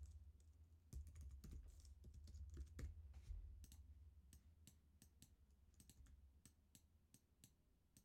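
Faint computer keyboard typing and clicks: a series of short, sharp taps, irregular at first and then at a fairly even pace, with a low rumble under the first few seconds.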